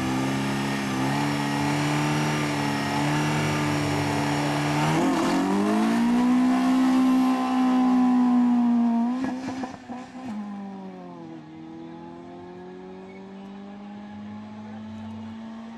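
Citroën Saxo drag car's engine held at steady high revs on the start line, then launching about five seconds in: the revs climb, break and drop at a gear change, climb again and drop at a second change. It grows much fainter over the last seconds as the car runs away down the strip.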